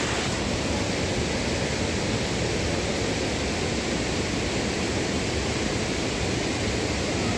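Steady, even rushing noise with a low, flickering rumble underneath, unchanging throughout.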